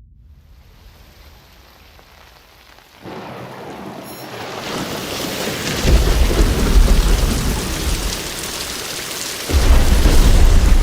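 Thunderstorm on a surround-sound demo soundtrack: rain hiss comes in about three seconds in and swells, with deep rolls of thunder about six seconds in and again near the end.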